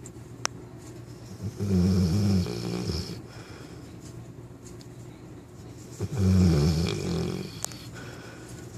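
A nine-month-old Newfoundland puppy snoring in its sleep: two long, low snores, the first about a second and a half in and the second about six seconds in, with quiet breathing between them.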